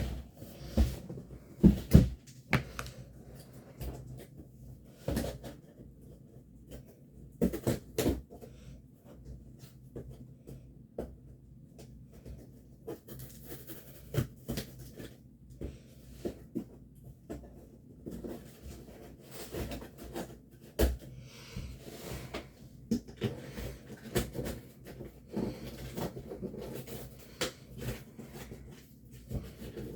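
Packaging being handled and opened by hand: scattered knocks and taps, loudest in the first couple of seconds, with stretches of rustling packaging.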